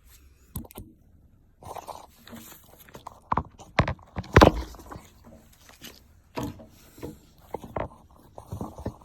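Handling sounds of an Apple Watch and its band: scattered small clicks, taps and brief rubbing, with a louder short sound about four and a half seconds in.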